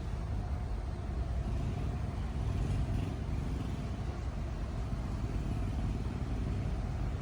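Heavy earthmoving machine's engine running steadily, a low, even rumble.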